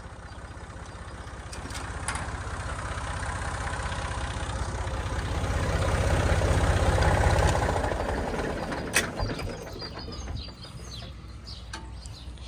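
Massey Ferguson 148's three-cylinder diesel engine running steadily. It grows louder over the first seven seconds or so as the hydraulic levers of the log grapple are worked, then eases back down. A single sharp click comes about nine seconds in.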